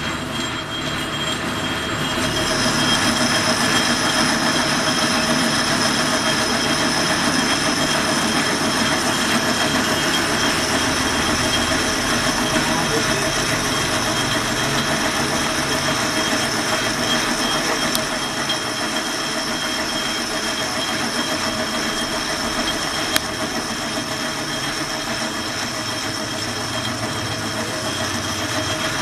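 Metal lathe turning a thick, hard steel bar, the cutting tool stripping off the outer skin: a steady machining noise with a hum and a high screech of tool on steel. The high whine comes in and the noise grows louder about two seconds in.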